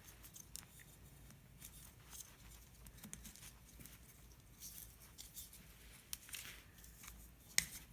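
Faint scattered clicks and rustles of wiring-harness wires being straightened by hand at a PCM connector, with one sharper click near the end.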